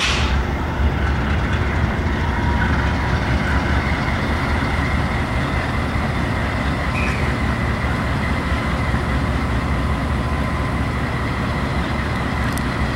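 Freight train cars rolling past steadily, with a deep rumble of wheels on the rails and a faint, steady high-pitched ring.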